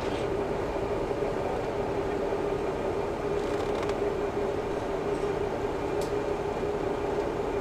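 Cabin sound of a KiHa 11-100 diesel railcar running between stations: a steady drone from the engine and drivetrain with a strong even hum, mixed with wheel and track noise and a faint click about six seconds in.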